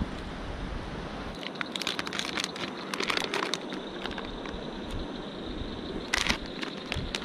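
Crinkling and crackling handling noises, in clusters about a second and a half to three and a half seconds in and again near six seconds. Underneath is a steady high-pitched drone of night insects.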